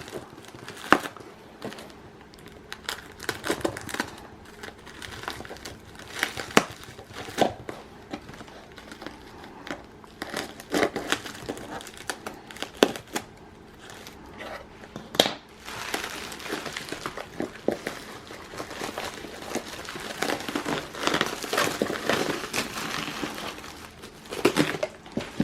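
Packing wrap around a shipped houseplant being crinkled and torn open by hand and with scissors that are not up to the job: irregular sharp snaps and rustling, growing into denser crinkling in the second half.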